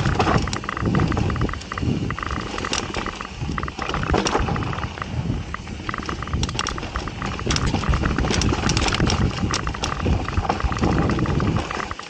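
Mountain bike riding down a dirt trail: wind buffeting the microphone in uneven gusts over the noise of tyres on dirt, with frequent sharp rattles and clicks from the bike.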